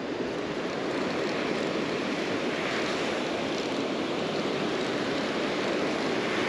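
Surf breaking on a sandy beach, heard as a steady rush of waves mixed with wind.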